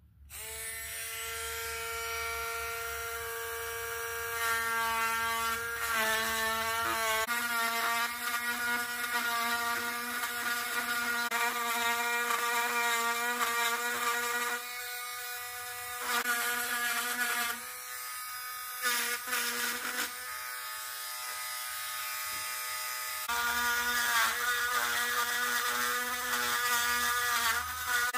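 Cheap Harbor Freight mini rotary tool switched on, running with a steady high whine. Its pitch wavers as the pointed bit engraves into the oak, and the sound drops back briefly a couple of times in the middle.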